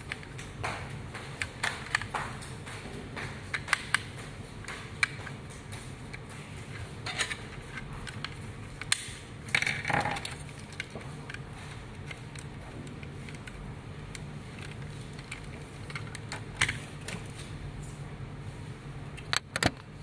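Hard plastic parts of a remote-control shark toy clicking and rattling as they are handled and snapped back together, in scattered sharp clicks, a few louder than the rest. A steady low hum runs underneath.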